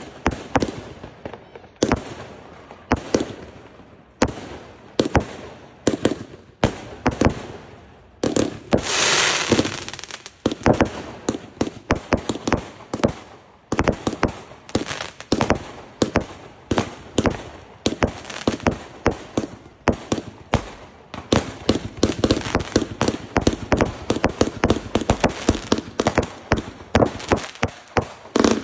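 Consumer aerial fireworks going off: a long run of sharp bangs, many in quick succession. A hissing stretch comes about nine seconds in, and the bangs come faster in the last third.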